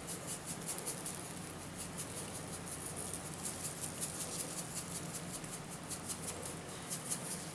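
Faint, irregular pattering of salt grains sprinkled by a gloved hand onto the rind of a pork roast, with soft rustling of the gloves.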